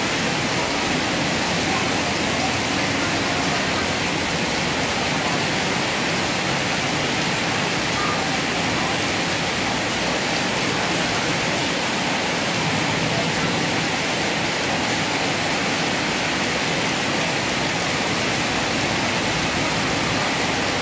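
Heavy rain pouring down steadily: a dense, even hiss that neither swells nor breaks.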